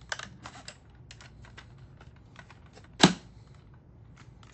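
Light plastic clicks and taps from handling the parts of a Dyson V10 stick vacuum during reassembly, with one loud sharp plastic snap about three seconds in.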